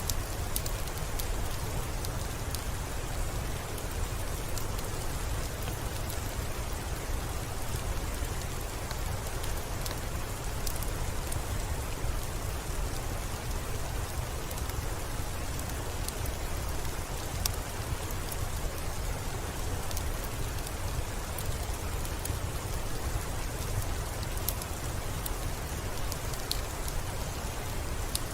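Steady rain falling, with scattered sharp drop ticks over a deep, even rumble.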